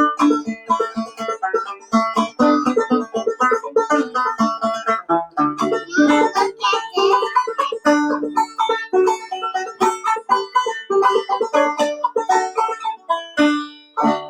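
Clawhammer banjo played solo, a quick run of plucked notes in an old-time tune, which stops abruptly at the end.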